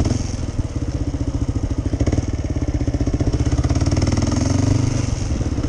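Kawasaki KLR dual-sport motorcycle's single-cylinder engine running steadily under way, a rapid even pulsing with a small rise in pitch about four seconds in.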